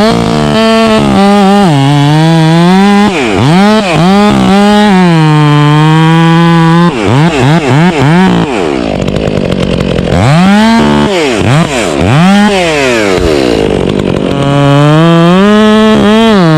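Two-stroke chainsaw revving up and down over and over, held at full throttle for a few seconds at a time and dropping back toward idle in between.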